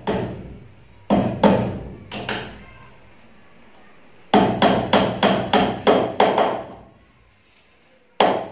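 Hammer blows on a wooden ceiling rafter, each with a short ring. There is a single blow, then three, then a quick run of about nine at roughly three a second, and one more near the end.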